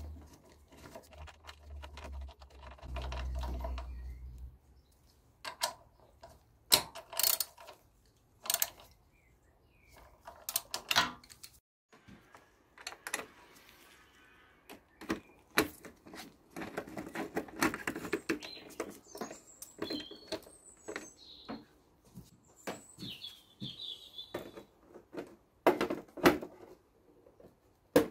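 Plastic fairing panels and screws on a Yamaha TDM 850 motorcycle being handled and fitted back into place: a string of separate clicks, taps and knocks, with a few louder knocks near the end.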